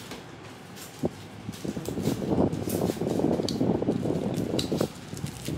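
Close, loud rustling and rubbing of a plastic bag being handled and wrapped around a pod of durian flesh, starting about a second in and stopping near the end.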